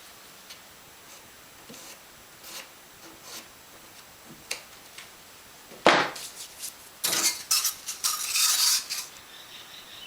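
Hand tools and materials being handled during sealant work: light scattered clicks, a sharp knock about six seconds in, then a burst of clattering and scraping.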